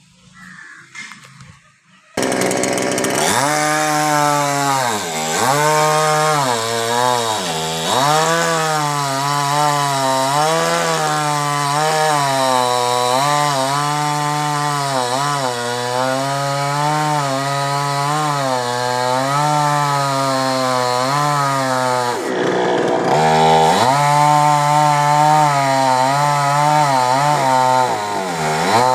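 Chainsaw engine running hard while cutting a coconut tree trunk; its pitch rises and falls continually as it bogs under load and revs back up, with a few sharp dips where the throttle drops. It starts abruptly about two seconds in.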